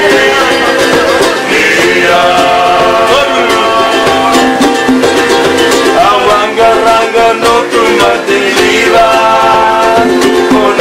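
Men singing together to a strummed ukulele and acoustic guitar, a live acoustic song with several voices held on long notes over a steady strum.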